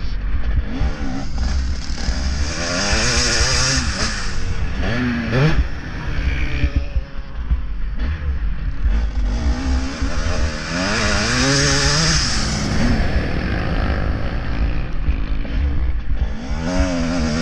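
Motocross bike engine racing hard, its pitch repeatedly rising and dropping as the rider accelerates, shifts and shuts off for corners, heard close up from the rider's own bike with wind rumbling on the microphone.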